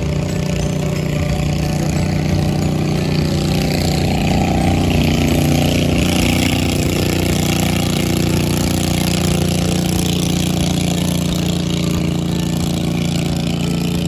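Engine of a narrow wooden motorboat running steadily as the boat passes, a little louder about five seconds in.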